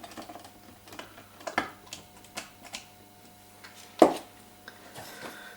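Small hand-tool clicks and taps as the Apple TV 4's internal metal plate is set back into the case and screwed down, a dozen or so irregular light clicks with one louder knock about four seconds in.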